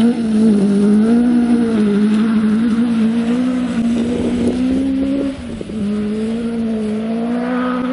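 Camera drone's rotors whining at a steady pitch, wavering slightly as it manoeuvres, with a short dip about five and a half seconds in.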